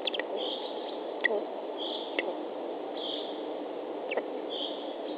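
Nest-camera audio with a steady hiss and a soft rhythmic rasping puff about once every second or so, which the uploader takes for the lesser spotted eagle chick breathing heavily. A few faint short chirps or clicks are also heard.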